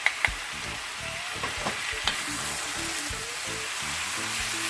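Beef and onions sizzling in oil in a frying pan as they are stirred, with a few sharp clicks, most of them near the start.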